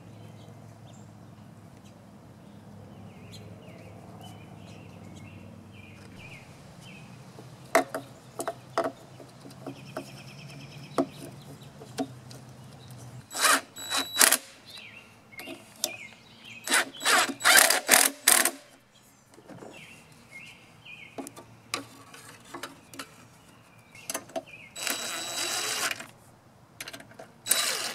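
Cordless drill-driver running in several short bursts, the longest about two seconds, driving in the screws that hold the muffler and engine cover on a small two-stroke blower engine. In the quieter first half there are a few clicks of parts being handled.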